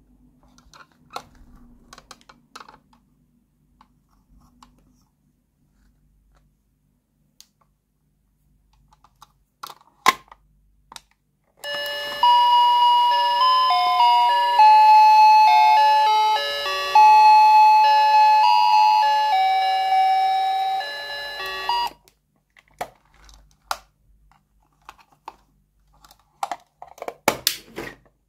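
Toy microwave oven playing a beeping electronic tune for about ten seconds, starting a little over a third of the way in and cutting off abruptly. Light plastic clicks and taps from handling the toy come before and after it, with a sharp click shortly before the tune starts.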